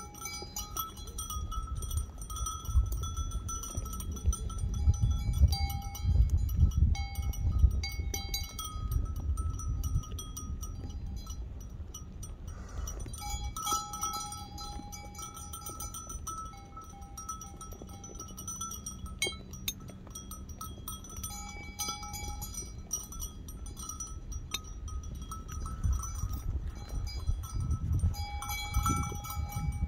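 Sheep feeding from a pan. Bell-like ringing at a few fixed pitches comes and goes over a low, uneven rumbling noise.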